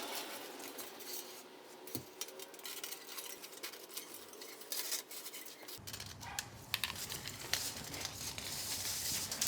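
Light metallic clinking and scraping of a coiled heating-element wire being handled and pressed into the grooves of firebrick, in scattered small clicks. A low rumble joins in about two-thirds of the way through.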